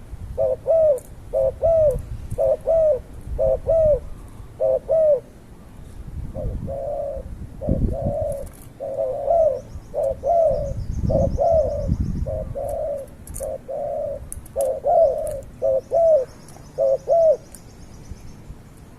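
A bird giving a long run of short, mid-pitched calls, a few a second, that stops a couple of seconds before the end, over a low rumble.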